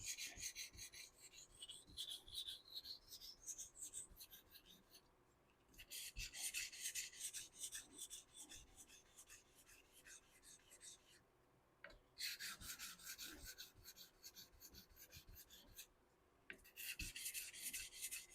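A straight razor blade being stroked back and forth across a 1k Shapton whetstone. It makes a quick, even run of scraping strokes in four bunches, with short pauses between them.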